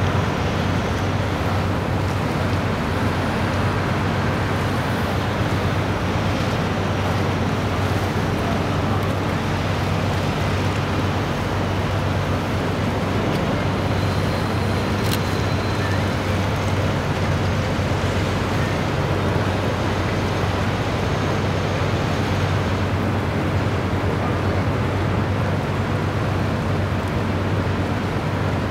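Motor cruiser's inboard engine running steadily under way, a constant low hum with the rush of water and wind over it. A single short click about halfway through.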